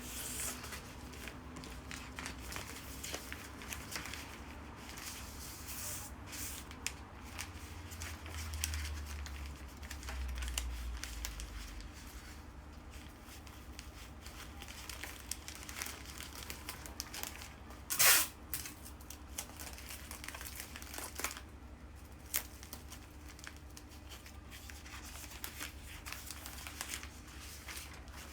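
Crinkly bouquet wrapping material being handled: steady crinkling and rustling with small crackles, and one loud, sharp tear about two-thirds of the way through.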